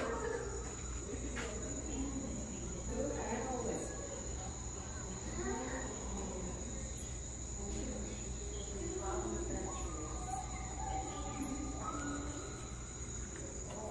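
Crickets chirring in one steady, high-pitched drone, with faint people's voices murmuring underneath.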